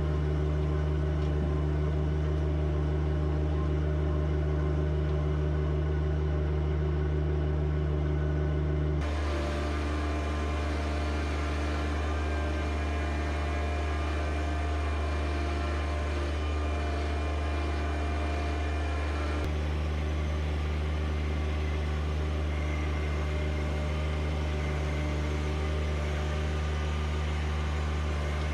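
John Deere 1025R compact tractor's three-cylinder diesel engine running steadily. Its tone changes abruptly about nine seconds in and again at about twenty seconds.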